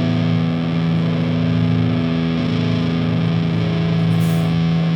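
Distorted electric guitar through an amplifier, holding one sustained chord that rings steadily with no drumbeat under it.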